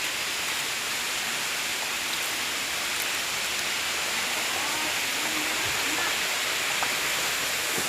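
Cascading waterfall with the steady, even hiss of falling water. Faint voices are heard in the middle, behind the water.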